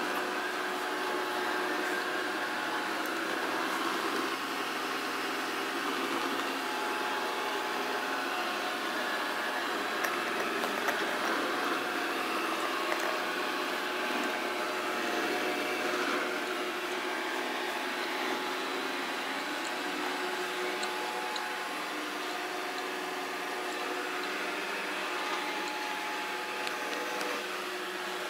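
Samsung SR8751 robot vacuum running: a steady suction-fan and brush noise with a faint steady whine, and a few light knocks about ten to thirteen seconds in.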